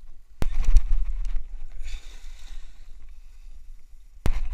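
Two sharp knocks with low buffeting rumble on a body-worn camera's microphone, and a short hiss between them, as a cast net is handled and thrown. The net spreads onto the water in a ring of splashes.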